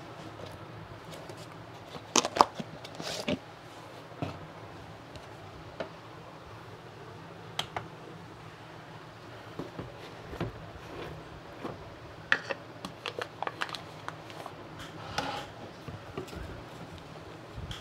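Two-part epoxy being mixed by hand: irregular small clicks, taps and scrapes of the stirring stick and plastic containers, loudest in a quick cluster about two seconds in, over a faint steady hum.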